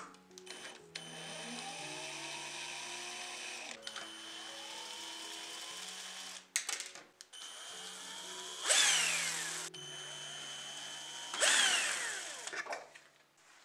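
Small electric screwdriver whirring in several runs as it backs screws out of a model car's chassis. Each run starts with a rising whine, and two louder bursts come in the second half. Soft background music plays underneath.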